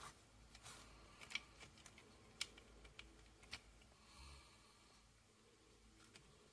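Faint clicks and taps of hard plastic action-figure parts being handled and pressed into place, a few sharp clicks spaced about a second apart.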